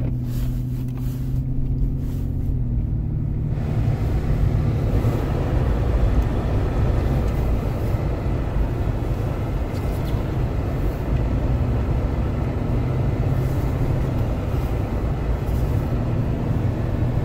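Nissan Pathfinder's engine heard from inside the cabin, first humming steadily at idle, then about three and a half seconds in picking up as the SUV drives across a snowy lot. Engine and road noise stay steady after that.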